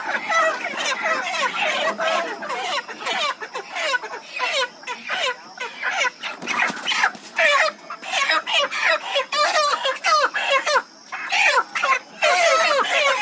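A large flock of chickens squawking and clucking in a dense, overlapping din as the birds are handled and caught for lifting.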